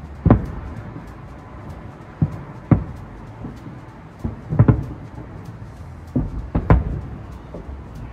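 Aerial fireworks shells bursting: a string of sharp booms, about eight in all, some coming in quick pairs.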